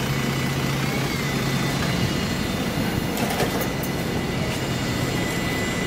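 Scania OmniCity double-decker bus idling at a stop, a steady low diesel hum with a thin high steady tone over it; a few sharp clicks about three seconds in.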